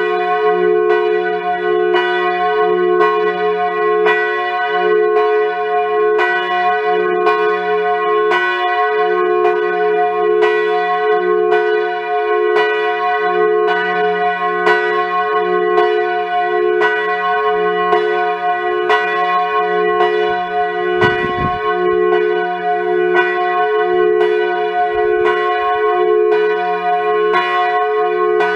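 The campanone, the big F bell of a five-bell Grassmayr bronze ring, swinging full circle under electric drive and struck about once a second in a steady peal (distesa). Its deep hum and bright strike tone ring on between blows.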